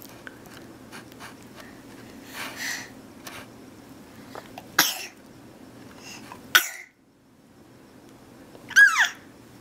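A baby sneezing: two sharp sneezes a little under two seconds apart, the first after a softer breathy lead-in. Near the end comes a short high baby cry that falls in pitch.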